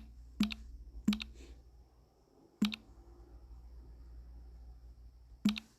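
About five sharp clicks at uneven intervals, from working a computer while looking something up, over a faint steady low hum.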